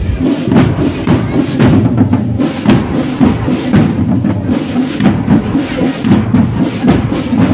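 Marching drum corps playing: many slung drums struck together in a fast, dense rhythm.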